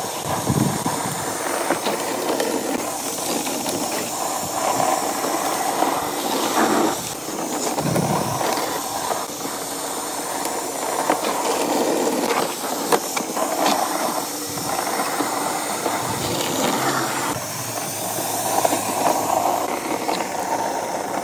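Ryobi 18V ONE+ battery-powered sweeper running, its motor-driven brushes sweeping grass clippings and grit off a concrete footpath and curb. It makes a steady rushing, brushing noise that swells and eases every few seconds as it is pushed along.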